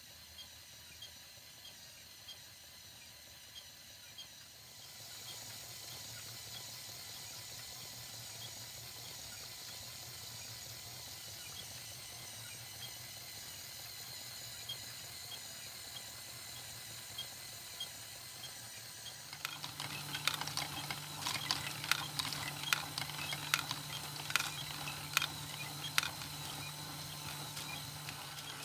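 Motors and plastic gears of a LEGO Technic Claas Xerion tractor model and its home-built harvester module running, with a steady hum and regular light ticking. A few seconds in the hum grows louder. About two-thirds through a second motor note joins, with a run of sharp plastic clicks and clatter.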